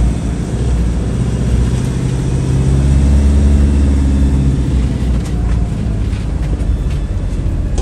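Motorhome engine running while the vehicle moves slowly. The revs rise a little a couple of seconds in, then ease off again.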